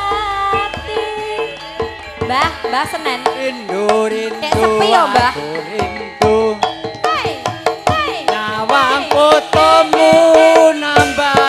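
Live Javanese gamelan music with kendang hand-drum strokes, and a female sinden and a man singing into microphones over an amplified sound system.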